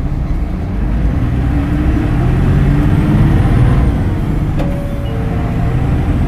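Hino Blue Ribbon City Hybrid city bus under way, its diesel engine and driveline pulling: the engine note swells and climbs slightly over the first few seconds, then eases off about four seconds in. A single short click is heard shortly after.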